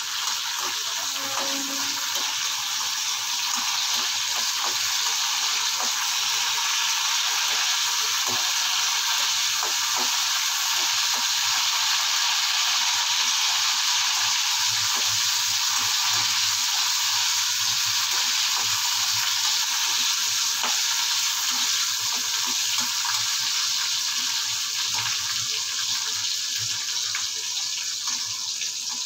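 Peeled garlic cloves frying in hot oil in an aluminium kadai: a steady sizzle, with occasional light scrapes and taps of a metal slotted spoon stirring them.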